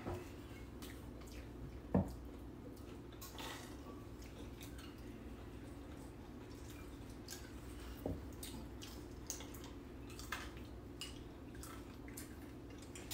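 Quiet tableware sounds at a meal: scattered light clicks and taps of chopsticks, bowls and glasses, the sharpest about two seconds in, over a steady low hum.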